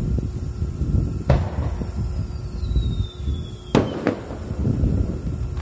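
Aerial fireworks: a sharp bang about a second in, then a whistle falling in pitch for nearly two seconds that ends in a loud shell burst, with a second crack right after.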